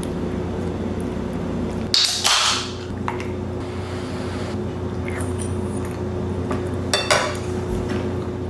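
A metal fork clinks and scrapes against a ceramic bowl: once about two seconds in and again as a few quick clinks near the end, over a steady low hum.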